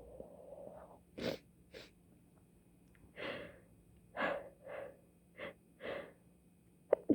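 A person in a sneezing fit from a stuffy nose: short sharp sneezes, with a run of quick breathy gasps and sniffs between them.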